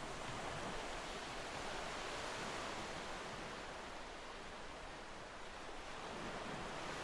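Steady, even background noise of distant city ambience, a hiss-like wash with no distinct events standing out.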